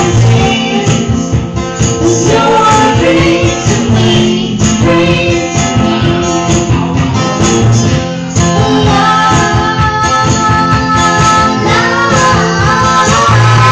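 Live band music in a bar: a man singing into a microphone over guitar and a steady beat, amplified and loud.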